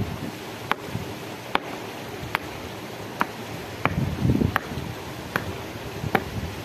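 Soil and stones scraped and shifted by hand, in rough bursts, loudest about four seconds in. Throughout, a short sharp tick repeats about every three-quarters of a second.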